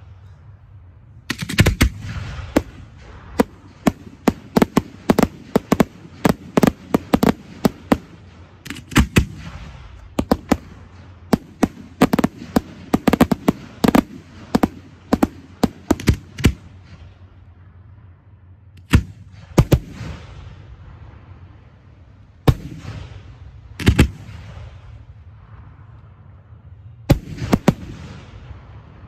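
Aerial fireworks display: rapid volleys of sharp bangs from shells and cakes bursting overhead, packed close together for the first half, then thinning to single and paired bangs a few seconds apart, each trailing off in a short echo.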